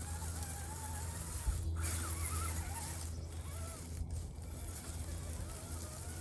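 Electric motor and gears of a radio-controlled crawler truck whining as it climbs over a log, the pitch rising and falling with the throttle.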